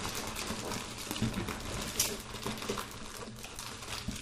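Black plastic shipping bag crinkling and rustling in irregular crackles as a cardboard box is pulled out of it, with a sharper crackle about two seconds in.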